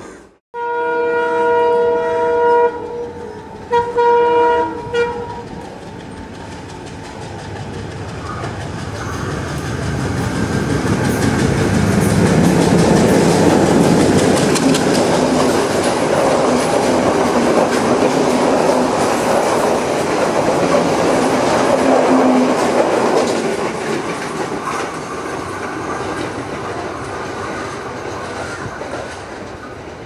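Sri Lanka Railways diesel locomotive sounding its multi-tone horn: one long chord of about two seconds, then two short blasts. The engine and the clatter of wheels over rail joints then grow loud as the train passes close, and slowly fade as it pulls away.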